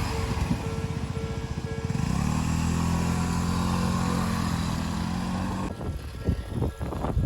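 Noise of a train that has just passed dies away, then a road vehicle's engine runs steadily for about three and a half seconds. Near the end the engine sound stops and irregular low rumbles and thumps follow.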